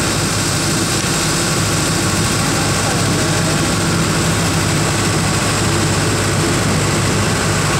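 Engine of a long, narrow covered river passenger boat running steadily under way: a constant low drone over a steady rushing hiss, with no change in pitch or loudness.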